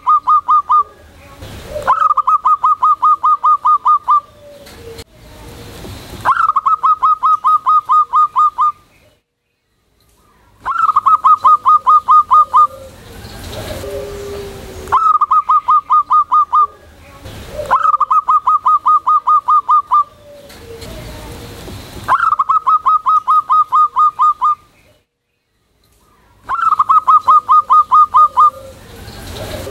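Zebra dove (perkutut) singing loudly: a phrase of about a dozen rapid, clipped coos at one steady pitch, lasting about two seconds, repeated about every four seconds, with a lower coo before some phrases. This is the bird's full calling song.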